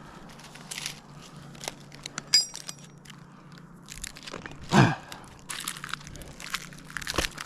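Climbing-spur gaffs biting and scraping into pine bark, with scattered crunches and scrapes, a short metallic clink about two seconds in, and a brief sound dropping in pitch a little before five seconds in, the loudest moment. The spike on one leg is strapped too loose and turns his foot out.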